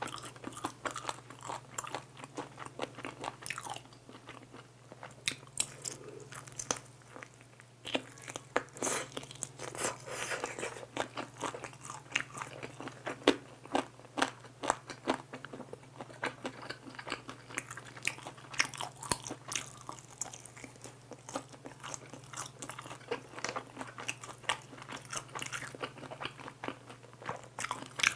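Close-miked biting and chewing of sauce-glazed fried chicken, with the crisp coating crackling in many irregular snaps.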